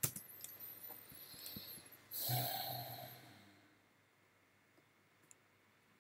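A person breathes out heavily, like a sigh, close to the microphone about two seconds in, lasting about a second, after a few sharp mouse clicks and some rustling.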